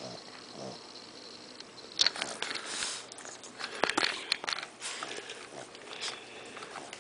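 Shih Tzu snoring through its nose: faint at first, then loud, irregular and noisy from about two seconds in, mixed with sharp clicks.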